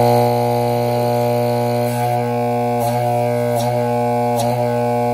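Secoh EL-80-15 linear diaphragm air pump (a septic aerator) running with a loud, steady buzzing hum, freshly rebuilt and with its cover off, which leaves diaphragm pumps pretty noisy. A few faint ticks sound over the hum.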